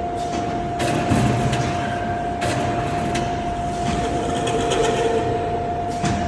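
Automatic grass-fence weaving machine running: a steady hum with a constant tone under a rattling, clattering mechanism whose pattern repeats every few seconds.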